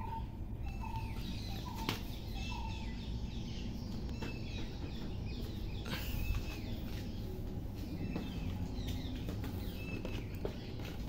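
Small birds chirping over and over in short repeated calls, with a few sharp clicks or knocks now and then.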